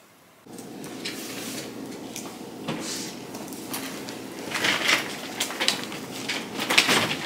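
Household handling sounds: clicks, knocks and rustling as the front door is opened and a stroller is moved about, over a steady room hum. The loudest knocks come about five seconds in and again near the end.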